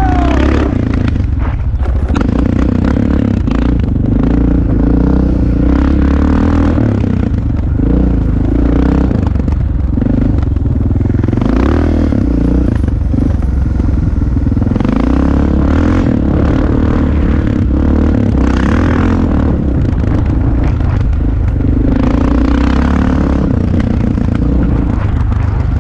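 Dirt bike engine running as the bike is ridden, its revs rising and falling again and again with the throttle.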